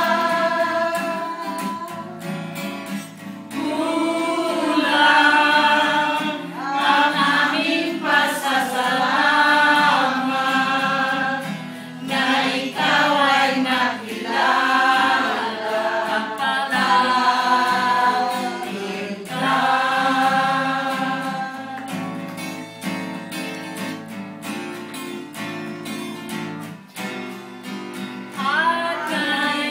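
A group of men and women singing together, accompanied by an acoustic guitar, with a softer passage about two-thirds of the way through.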